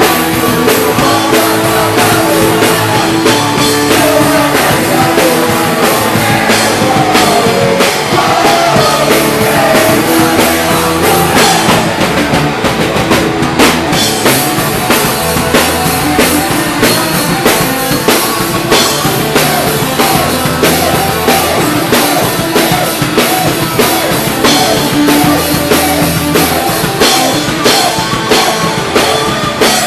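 A punk rock band playing loudly live, the drum kit driving a fast, steady beat under the guitars and bass.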